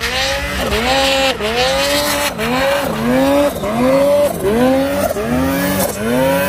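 Turbocharged two-stroke engine of a Polaris 155 Boost mountain snowmobile climbing a steep powder chute, revving up and dropping back over and over, about one and a half times a second. The rider is feathering the throttle to keep the front down instead of holding it wide open.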